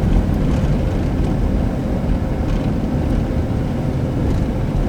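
Car engine running hard with a steady, heavy low rumble of tyre, road and wind noise as the car drifts a snow-covered on-ramp.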